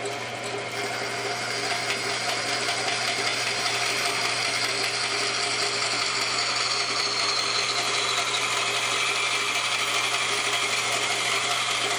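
Band saw running and ripping a board lengthwise, the blade cutting steadily through the wood over a constant motor hum. The cutting noise gets louder about a second in as the blade bites further into the board.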